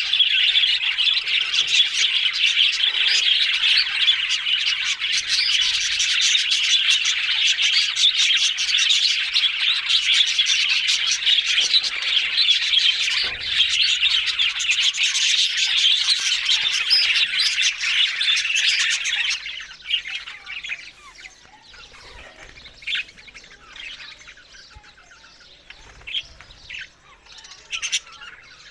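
Budgerigars chattering and warbling in a dense, continuous stream of chirps. About two-thirds of the way through it drops off sharply to quieter, scattered chirps.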